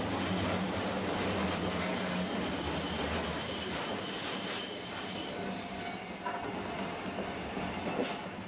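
Streetcar wheels squealing on a curve: one thin, steady, high squeal over the rumble of the tram running on its rails, stopping about two-thirds of the way through as the car comes off the bend.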